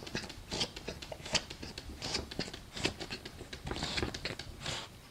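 Faint, irregular clicks and rustling, like small objects being handled.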